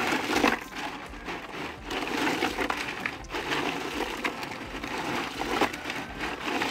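Bay scallops in their shells being stirred by hand into ice in a cooler: a continuous clatter and crunch of shells and ice cubes knocking together.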